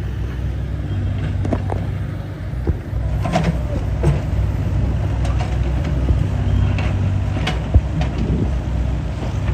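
An engine running steadily at a constant speed, with scattered sharp clicks and knocks over it.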